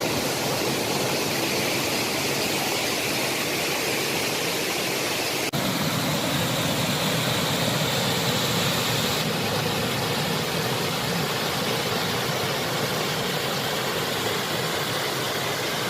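Mountain stream rushing over rocks, a steady roar of water swollen after the monsoon rains, with a brief break about five and a half seconds in where the footage cuts.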